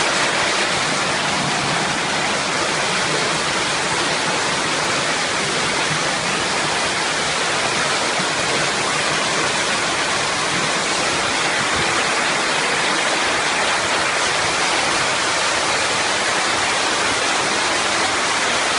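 Flash-flood water rushing through a village street in a muddy torrent: a steady, loud rush of water that does not let up.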